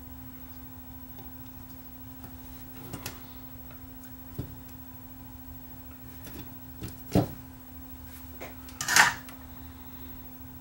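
Scattered light clicks and knocks from tools and small parts being handled on a workbench, over a steady faint hum. The loudest is a short scraping knock about nine seconds in.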